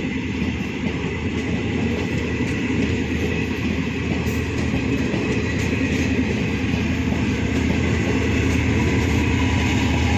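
Indian Railways passenger train running, a continuous noise of wheels on the rails that grows slightly louder toward the end.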